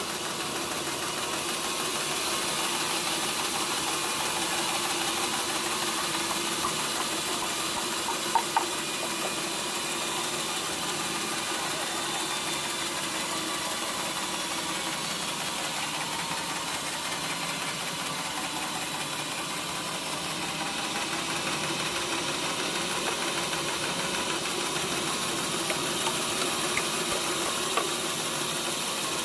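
Sawmill machinery running steadily with an engine-like hum and hiss. Two sharp knocks come about eight seconds in and a few small clicks near the end.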